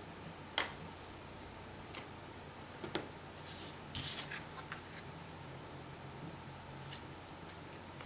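A few light clicks and taps of a clear acrylic stamp block and a thin plastic sheet being handled on a cutting mat, with a brief rustle of the sheet about four seconds in.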